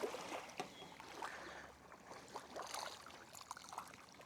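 Faint lapping and trickling of small waves at the water's edge, with many small irregular splashes.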